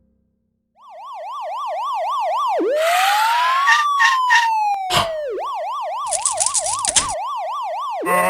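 Electronic emergency-vehicle siren, starting about a second in with a fast yelp, switching to a slow rising-and-falling wail, then back to the fast yelp, with a new wail starting near the end. Clicks and a burst of hiss sound over the middle.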